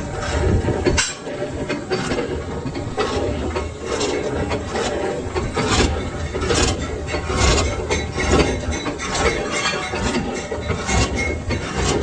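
Metalworking on a lathe: irregular scraping and rasping with scattered clicks over a steady low machine hum.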